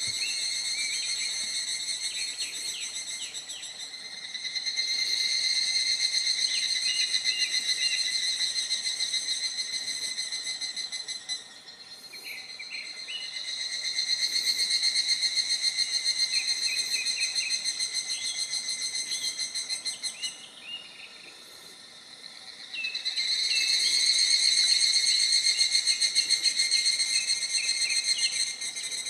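Cicadas singing: a high, rapidly pulsing buzz that swells and fades in long phrases several seconds apart, three loud stretches in all.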